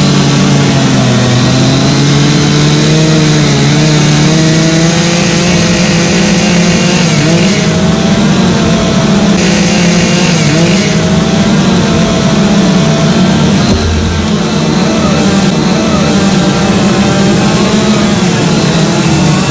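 Two-stroke chainsaws running loud and continuously while carving wood, their engine pitch wavering up and down as the saws are throttled and loaded.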